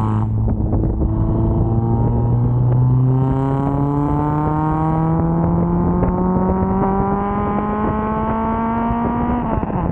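Straight-piped Nissan SR20 VVL four-cylinder engine running under load while driving: the exhaust note holds steady for about three seconds, rises slowly in pitch, then drops abruptly near the end.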